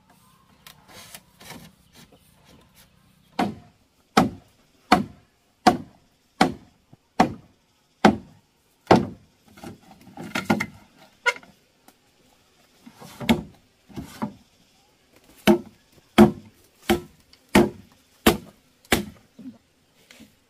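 A steady series of chopping blows on wood, about one every three quarters of a second, with a short break about halfway through.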